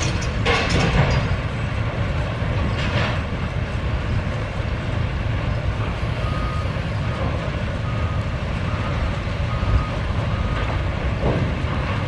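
Sawmill log-yard machinery running with a steady low rumble and some clatter in the first few seconds. From about halfway, a machine's warning alarm beeps in a steady repeated series.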